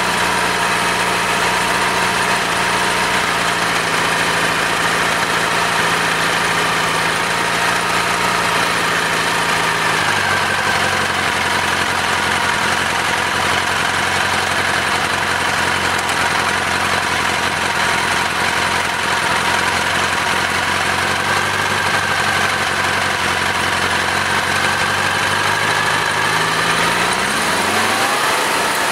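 Military 4A032 four-cylinder air-cooled engine running steadily at idle. Its speed drops a little about ten seconds in and picks up again near the end.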